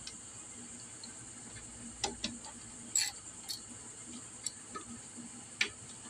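Scattered light metallic clicks and taps of a hand tool working the mounting bolts of a GY6 scooter engine's cam chain tensioner, at irregular intervals over a faint steady hiss.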